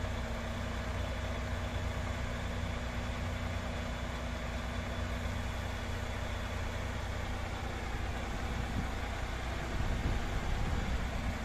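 Heavy diesel engine running steadily at low revs, a low hum with a steady tone over it, getting a little louder near the end.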